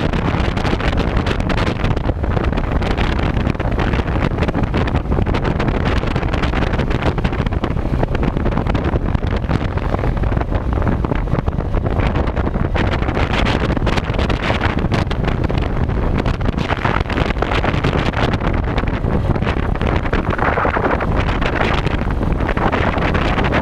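Wind rushing over the microphone of a motorcycle on the move, with engine and road noise underneath, slightly louder about twenty seconds in.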